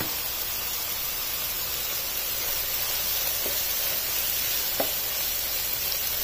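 Minced beef sizzling as it fries in a non-stick pan while tomato paste is stirred in with a wooden spatula, with a light knock of the spatula about three and a half seconds in and again near five seconds.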